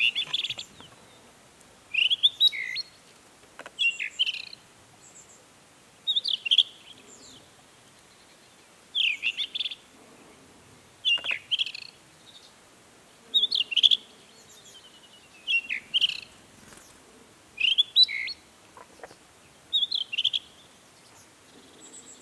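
Rufous-tailed scrub-robin singing: about ten short, varied, high-pitched phrases, each under a second long, repeated roughly every two seconds with quiet pauses between.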